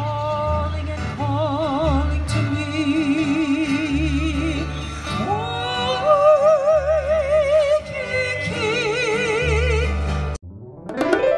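Hawaiian hula music played live: a singer holding long notes with a wide vibrato over plucked upright bass and ukulele. The music cuts off suddenly about ten seconds in, and sharp percussive knocks start just before the end.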